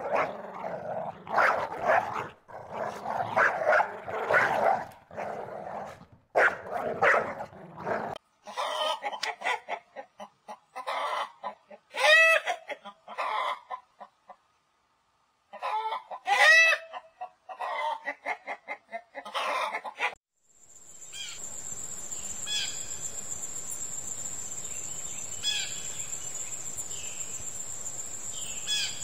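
A dog barking in quick bursts, then chickens clucking, with two loud drawn-out calls a few seconds apart and a short silence between them. In the last third, short bird chirps repeat over a steady high-pitched insect trill.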